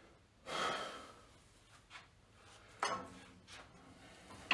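A man catching his breath after a set: one loud heavy exhale, like a sigh, about half a second in, then a short, sharp sound near three seconds in.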